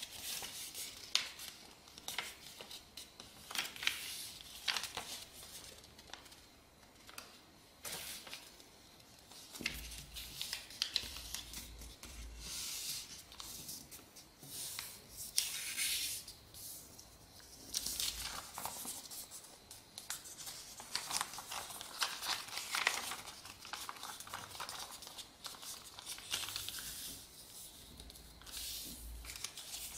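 A sheet of A4 paper being folded and creased by hand: irregular rustling and crinkling, with brief crisp swishes as fingers smooth the folds flat.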